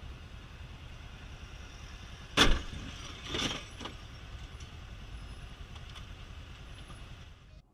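Motorcycle engine running at low speed in traffic, a steady low rumble. About two and a half seconds in there is a loud sharp knock, and a second, weaker knock about a second later.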